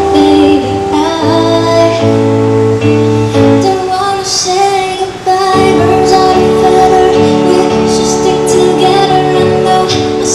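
A woman singing a melody over instrumental backing music.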